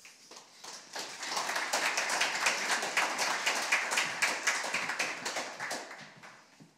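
Audience applauding, swelling over the first second or so and fading away near the end.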